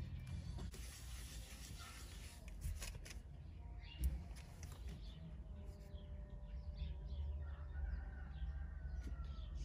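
Faint clicks and taps of a small metal trim ring being handled and fitted around a car's push-button start switch, with one sharper click about four seconds in. Near the end, a faint drawn-out animal call is in the background.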